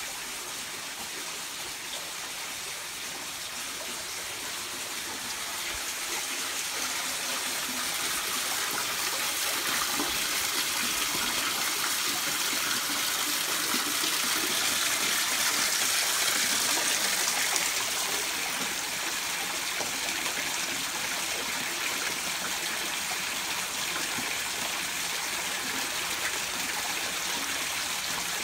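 Spring water pouring from spouts in a stone wall and splashing below, a steady rush that grows louder toward the middle and eases somewhat afterwards.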